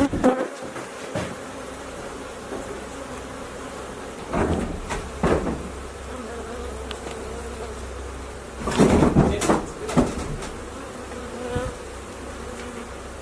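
A swarm of honeybees buzzing steadily around an opened hive. A few knocks and handling bumps cut through the buzz, a pair about four to five seconds in and a louder cluster about nine to ten seconds in.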